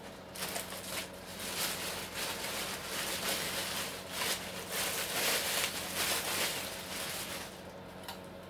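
Plastic wrapping crinkling and rustling in irregular bursts as it is pulled off a keyboard by hand, dying down near the end.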